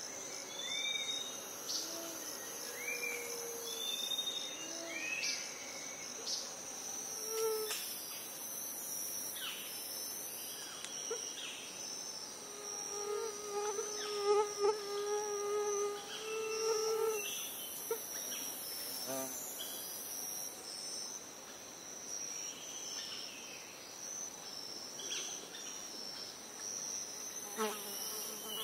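Rainforest insects trilling without a break in a high, pulsing tone, with stretches of higher hissing buzz that come and go. Over them, scattered animal calls: short arching whistles in the first few seconds and a longer, lower call with overtones about halfway through.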